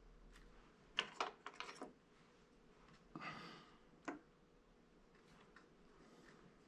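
A metal-tipped wooden sculpting tool clicks against the workbench as it is handled, a quick cluster of light clicks about a second in. Around three seconds in it gives a short scrape across the clay, then one more click.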